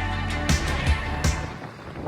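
Background music with a few drum hits, fading out near the end.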